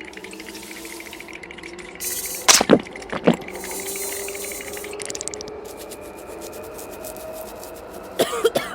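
Underground train ambience: a steady running hum with two sharp knocks about two and a half and three seconds in and bursts of hiss, then a motor tone that rises slowly in pitch as the train pulls away.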